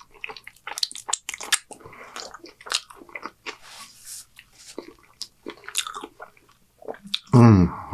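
Close-up chewing of a mouthful of cheeseburger: many short wet mouth clicks and smacks. A brief hiss of a napkin wiping the mouth comes about four seconds in, and a man's voice starts near the end.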